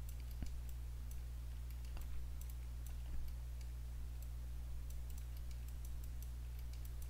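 Light, irregular computer mouse and keyboard clicks, a few a second, over a steady low electrical hum.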